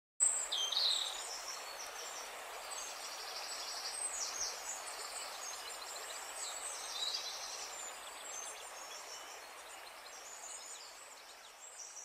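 Woodland ambience: several birds chirping and calling, over a steady hiss.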